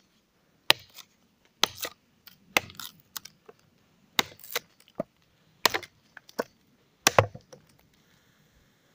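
Large bushcraft chopping knife (Waldläufer XXL, 4.5 mm-thick 80CrV2 steel blade) chopping a point onto the end of a wooden stick braced on a stump: about ten sharp, irregular chops into the wood, the loudest near the end.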